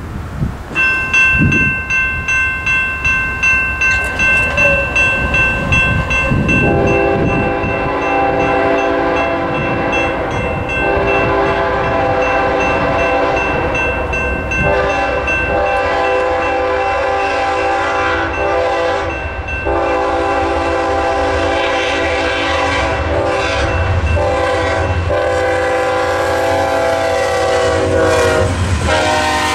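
A railroad crossing's General Signals Type 2 electronic bell starts ringing about a second in, a steady pulsing high tone. From about seven seconds in, an approaching BNSF GE ES44C4 locomotive sounds its multi-note air horn in several long blasts for the crossing. The horn drops in pitch as the locomotive reaches the crossing near the end.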